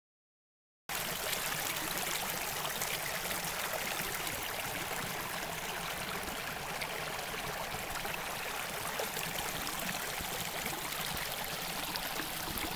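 Water of a small brook, swollen with rain runoff, running steadily. It starts abruptly about a second in.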